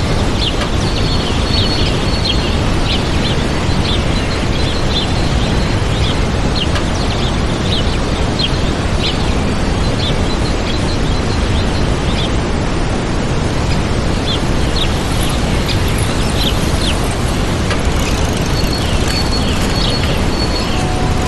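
Waterfall rushing steadily, with small birds chirping in many short high calls over it.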